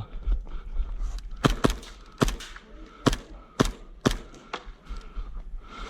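Airsoft gas blowback pistols firing: a string of sharp cracks, about six loud ones irregularly spaced, with a low rumble on the microphone.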